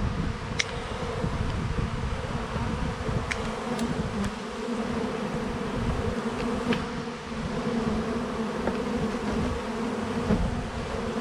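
A disturbed swarm of honey bees buzzing as it is being moved into a hive, a dense, steady hum at one low pitch, with a few sharp clicks.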